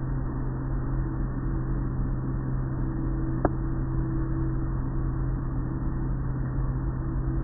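Automatic car wash machinery running, heard from inside the car: a steady low motor hum over a constant wash of spray and swishing noise, with one sharp click about three and a half seconds in.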